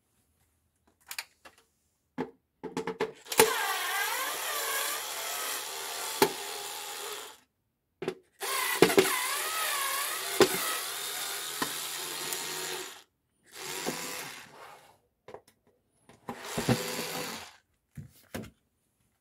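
Small electric screwdriver running in four bursts of a few seconds each, with a wavering motor whine, as it backs out the screws holding a diecast model car to its plastic base. Short clicks and knocks come between the bursts.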